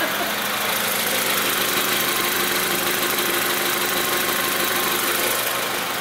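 2004 Honda Civic's 1.7-litre four-cylinder engine idling steadily, running again now that its crank/no-start fault has been fixed.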